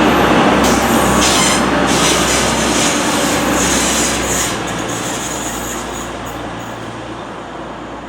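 Diesel train running past on the rails, its engine hum and wheel noise loud at first, then fading steadily over the second half as it moves away. High-pitched wheel squeal comes and goes throughout.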